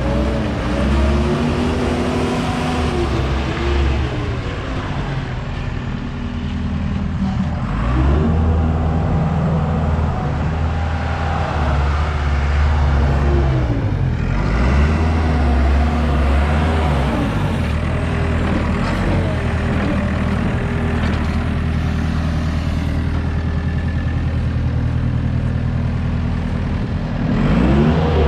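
Engine of a 2010 JCB 260 skid steer running, its speed sagging and climbing back several times as the machine is worked, with a quick rev near the end.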